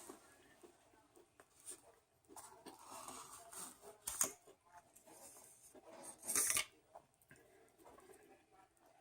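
Food packaging handled while eating: paper and wrapper rustling and tearing, with a sharp click about four seconds in and a louder half-second rustle just after six seconds in.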